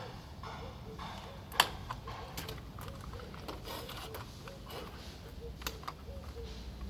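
Scattered light clicks and knocks of hands and small tools working on a part, with one sharp knock about a second and a half in.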